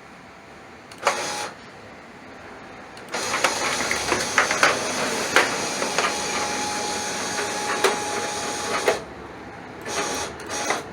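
Hybrid servo stepper motor driving a linear actuator axis of a DIY milling machine. There is a short move about a second in, then a longer run of about six seconds with a steady whine and rattling clicks, then two brief moves near the end.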